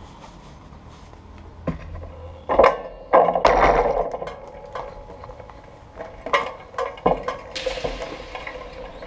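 Clicks, knocks and rustling from handling a bicycle and its handlebar-mounted camera, with a louder clatter from about two and a half to four seconds in and a hiss near the end.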